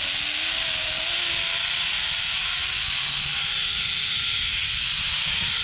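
Zipline pulley trolley running along a steel cable: a steady hiss with a faint whine that slowly rises in pitch as the rider picks up speed, with wind buffeting the microphone.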